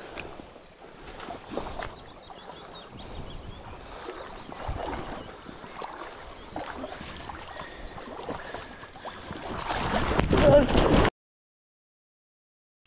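Shallow river water running around a wading angler, with small knocks of handling and wading. About ten seconds in comes a loud splashing as he plunges through the water after his dropped fly rod. The sound then cuts off suddenly into silence.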